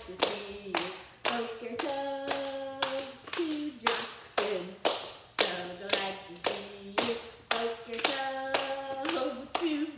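Hands clapping and patting a steady rhythm, about two strikes a second, under voices singing a Hebrew good-morning song with long held notes.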